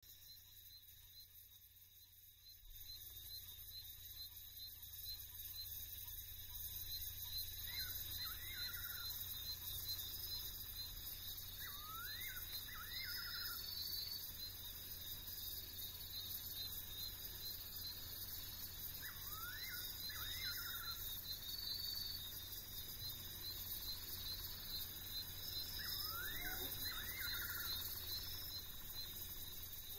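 Night-time African bush ambience: a steady high insect chorus, with a nightjar's short whistled phrase of three or four quick notes repeating about every six or seven seconds. The background swells a couple of seconds in.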